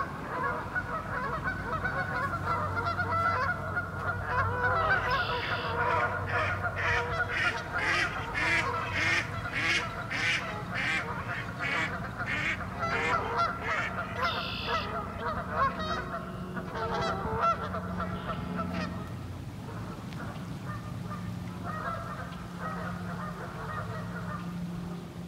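A flock of geese honking, many calls overlapping, with a run of loud honks about two a second in the middle. The honking is agitated, in reaction to a person on the bank.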